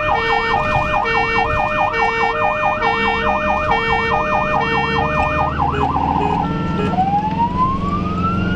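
Ambulance siren sounding a fast yelp with an alternating two-note tone over it. About six seconds in it changes briefly to a steady note, then to a slow wail that rises through the rest. Under it runs the ambulance's engine and road noise, heard from the cab.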